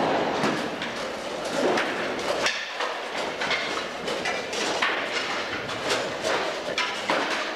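Sticks used as practice weapons striking armour, helmets and each other in a rapid, irregular run of knocks and clacks, several a second.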